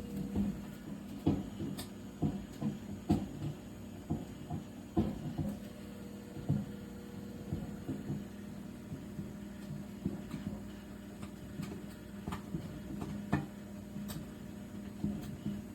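Toshiba inverter microwave running: a steady hum with irregular bumping knocks, more frequent in the first half. These are the weird bumping noises the owner says it makes whenever it is on, which he has always suspected come from the turntable.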